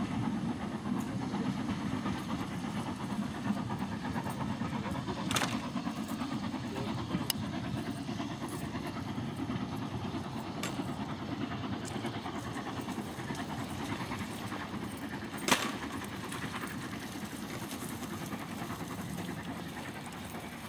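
LNER K4 three-cylinder steam locomotive No. 61994 hauling its coaches away, a steady low rumble that slowly fades as the train recedes. A few sharp clicks cut through it, the loudest about fifteen seconds in.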